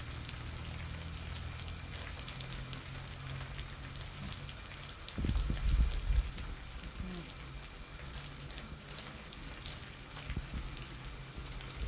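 Small omena fish deep frying in hot oil, a steady sizzle with many small crackles and pops. About five seconds in there is a brief low knock, like the pan or a utensil being moved.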